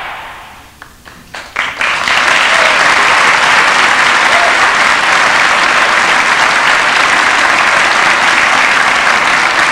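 Audience applause: a few scattered claps about a second in, swelling into steady, dense clapping from about two seconds in.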